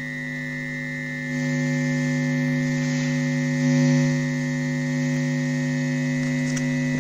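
Steady electronic drone of several held tones, low and high together, from a sound sculpture driven by electrodes set in a bucket of rotting compost. It steps up in loudness about a second in and swells briefly near four seconds.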